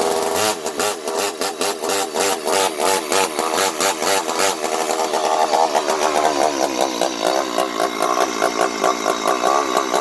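Stihl MS 250 two-stroke chainsaw engine running with its muffler removed, loud and uneven, its speed surging up and down. It has just fired on starting fluid after being brought back from dead.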